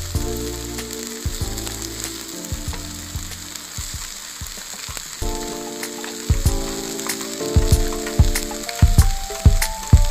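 Slices of Spam and chopped onion sizzling steadily in a nonstick frying pan, with occasional sharp clicks as chopsticks turn the pieces against the pan, more of them in the second half. Light background music plays under it.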